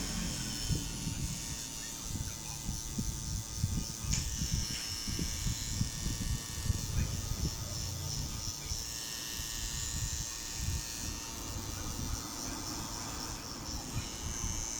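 Tattoo machine running with a steady electric buzz.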